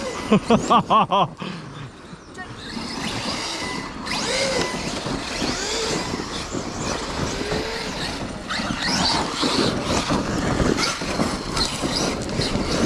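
Radio-controlled cars racing: their motors whine, rising and falling in pitch again and again as they accelerate and slow, over a continuous rough noise.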